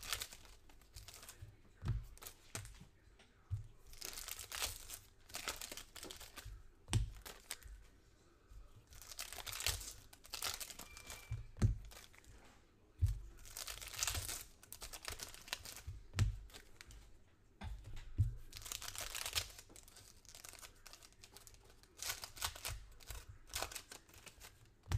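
Foil trading card pack wrappers being torn open and crinkled by hand, one rip after another, with occasional soft thumps.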